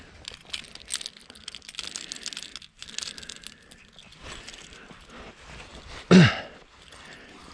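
Crackling rustle of a jacket and dry grass as a baitcasting rod is handled, then about six seconds in a cast: a short, loud whir falling steeply in pitch as the baitcasting reel's spool pays out line.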